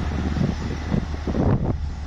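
Bulldozer's diesel engine running with a steady low drone, while wind buffets the microphone in uneven gusts.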